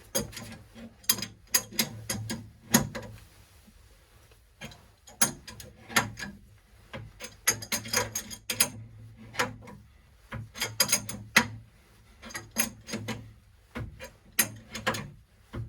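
Hand wrench working the metal fittings of a water heater's gas piping: irregular runs of sharp metallic clicks, a few in quick succession, with short pauses between.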